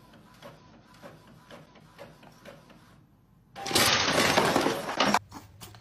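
Faint ticking, then about three and a half seconds in a sudden loud clattering crash lasting about a second and a half, with a shorter clatter just after.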